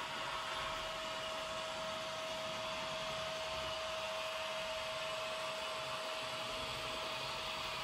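ESU sound decoder in a Märklin H0 Krokodil (Ce 6/8) model playing the electric locomotive's running sound while the model drives: a steady whine held at one pitch over an even hiss.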